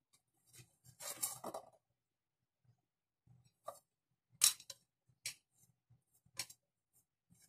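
Metal utensil clinking and scraping against a stainless steel bowl: a short scrape about a second in, then a few separate sharp clinks, the loudest about halfway through.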